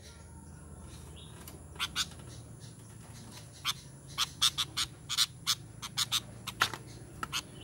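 Sooty-headed bulbul (kutilang) giving a quick, irregular run of short, sharp call notes that starts about two seconds in.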